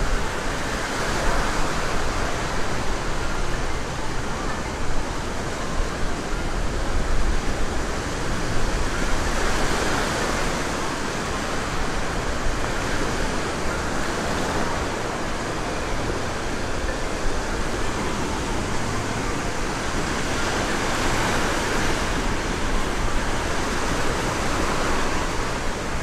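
Small surf breaking and washing up a sandy beach: a steady hiss of waves that swells every several seconds.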